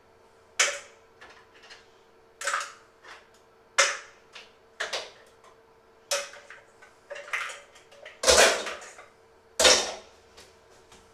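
Metal pots and dishes clanking and knocking against each other and the counter while being handled, about a dozen separate sharp clanks, the loudest two near the end.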